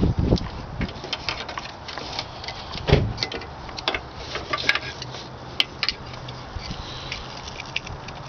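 Irregular light clicks and small rattles of hands working plastic parts and bulb sockets, with one louder knock about three seconds in.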